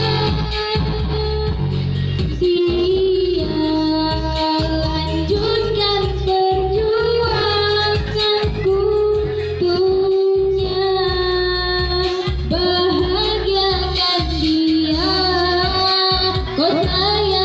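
A high-voiced singer sings a slow, melismatic melody with long held and sliding notes, over a backing track with a steady bass beat.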